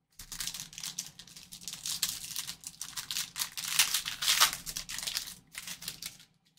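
Foil wrapper of a Panini Select baseball card pack crinkling and tearing as it is pulled open by hand: a dense run of crackling rustles, loudest about four seconds in, stopping just before the end.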